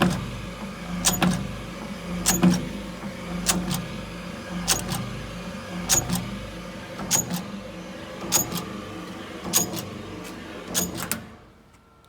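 Electric needle meat tenderizer running: a motor hum with a sharp double clack about every 1.2 seconds. It shuts off about 11 seconds in.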